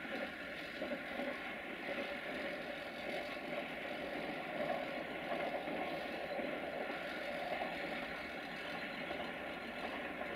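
Diesel engine of an LDE2100 (060-DA) diesel-electric locomotive, a Sulzer twelve-cylinder, running steadily as it hauls a freight train of tank wagons slowly toward the station.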